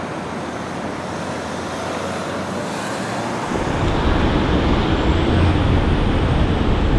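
Steady city street traffic noise blowing in gusty wind. About three and a half seconds in, the recording switches to a Rode shotgun VideoMic with its high-pass filter off, and a heavy low wind rumble takes over: this microphone is very sensitive to wind at low frequencies.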